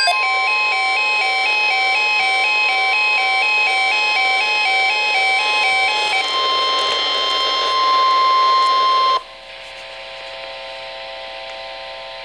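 Emergency Alert System attention signal: a long steady alert tone, with a two-note alternating beep sounding over it for about the first six seconds. The tone cuts off abruptly about nine seconds in, leaving a quieter steady hum.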